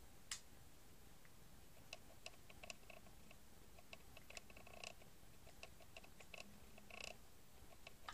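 Faint, irregular small clicks and taps of a plastic solar garden light being handled and turned over in the fingers.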